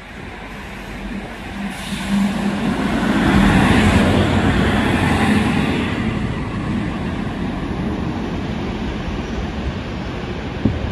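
Electric trains running through the station: the rumble and wheel noise of an SNCB double-deck train and a class 27 electric locomotive, with a steady low hum, swelling to a peak about four seconds in and then settling to a quieter steady running noise.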